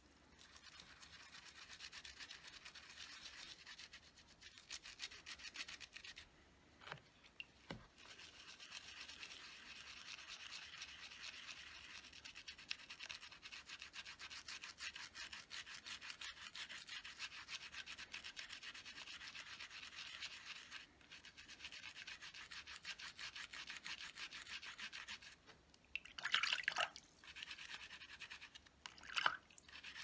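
Soapy makeup brush bristles scrubbed rapidly over a silicone brush-cleaning pad: a fast, soft, bristly scratching that pauses briefly now and then. Near the end there are two brief louder sounds.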